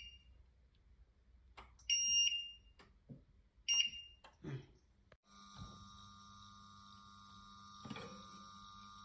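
Bosch induction hob: its touch controls give two short, high electronic beeps, about two and four seconds in, with a few soft knocks between them. After a cut about five seconds in, a steady electronic hum with a thin whine as the hob heats the pan.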